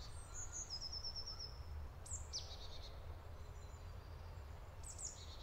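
Songbirds singing in a forest: a quick trill of repeated high notes at the start, a falling call about two seconds in and another near the end, over a faint low rumble.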